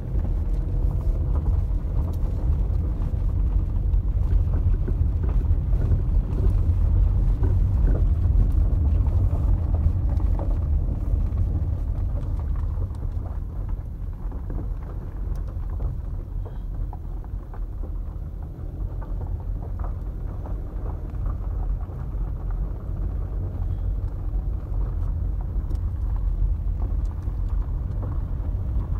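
Car driving on a gravel road, heard from inside the cabin: a steady low rumble of tyres and engine with scattered small ticks, louder in the first half and easing off about halfway through.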